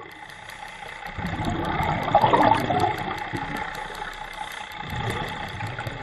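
Underwater, a diver's exhaled air bubbling and burbling up past the camera, swelling about a second in and easing off near the end, over a steady hum.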